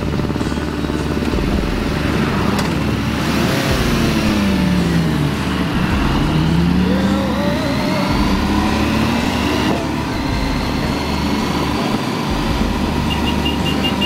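Motorcycle engines running in a group ride, heard from a handlebar-mounted camera with heavy wind rumble on the microphone. Around the middle, an engine's pitch drops and then climbs again as the bike eases off and accelerates. A rapid high beeping starts near the end.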